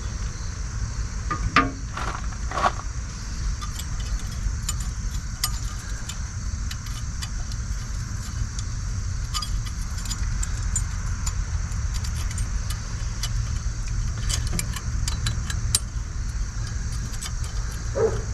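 Light metallic clicks and clinks of rear brake pad clips being handled and pressed into the caliper bracket, with a few sharp knocks early on and a cluster of ticks later. Under it runs a steady low rumble.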